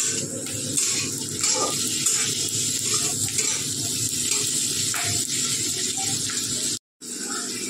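Tomatoes, onion and green chillies frying in a kadhai on low gas: a steady sizzle, with a metal spatula stirring and scraping against the pan. The sound cuts out for a moment near the end.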